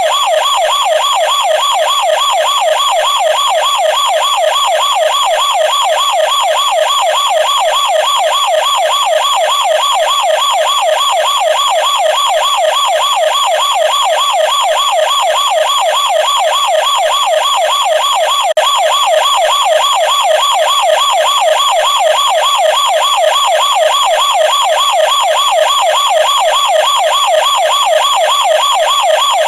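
Plastic toy police car's siren sounding continuously: a loud, fast warble rapidly swinging up and down in pitch.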